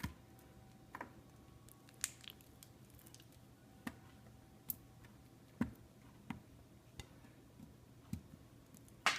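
Scattered light taps and clicks, about a dozen at uneven spacing, of utensils and containers being handled while crushed honeycomb is worked and strained, with a sharper knock near the end.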